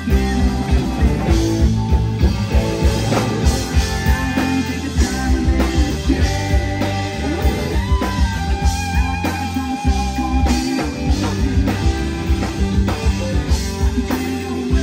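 Live rock band playing: two electric guitars, keyboards and a drum kit, with a steady beat.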